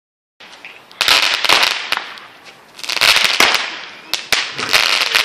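Fireworks going off, three rounds of rapid crackling pops about a second, three seconds and four and a half seconds in, each dying away.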